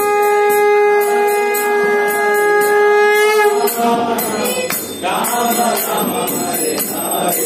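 A conch shell (shankha) blown in one long, steady note that dips in pitch and stops about three and a half seconds in. Hand cymbals and bells keep a steady rhythm under and after it.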